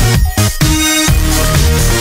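Background electronic dance music with a steady beat and a falling synth glide.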